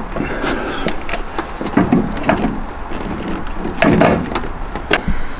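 Irregular clicks, clunks and knocks of hand tools and metal parts in a car's engine bay as a new engine mount is bolted in, with a few heavier knocks about two and four seconds in.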